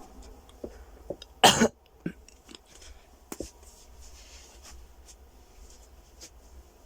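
A person coughs once, a short hard burst about a second and a half in. A few faint clicks and taps come before and after it.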